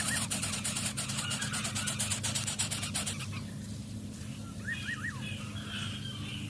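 Outdoor ambience: a rapid, high-pitched ticking buzz that cuts off abruptly about three seconds in, then a few short rising bird chirps, over a steady low hum.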